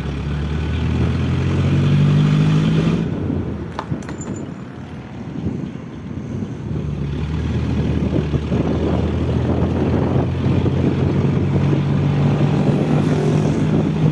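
A truck engine accelerating, its pitch rising over the first two to three seconds and then falling away, with a sharp click about four seconds in; the engine note then builds again steadily from about seven seconds on.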